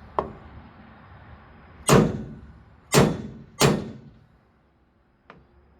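Three sharp, loud strikes, the last two close together, each fading out over about half a second, with a faint click at the start and another near the end.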